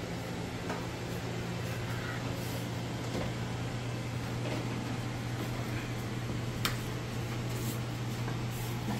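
Steady low hum, like an appliance or fan running, with a few faint clicks; the clearest click comes about two thirds of the way through.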